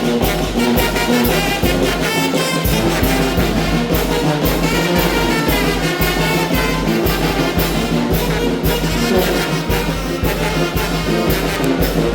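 Mexican brass banda playing a huapango: brass melody over a steady, pulsing bass beat.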